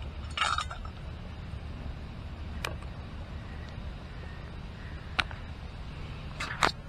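A few light clicks and clinks from a camp cooking pot's wire bail handle as the pot is lifted off a small burner, the sharpest cluster near the end, over a steady low rumble.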